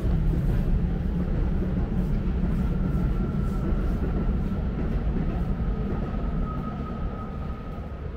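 A train running past nearby: a heavy low rumble with a thin steady whine over it, fading near the end.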